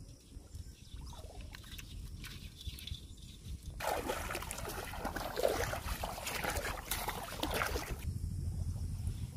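Shallow water splashing and sloshing as a person wades through it on foot, loudest for about four seconds starting a little before halfway.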